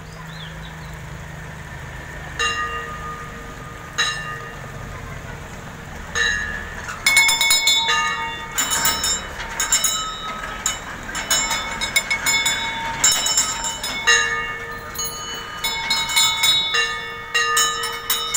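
Metal temple bells struck by hand, ringing: a few single strikes, then many rapid, overlapping strikes from about seven seconds in.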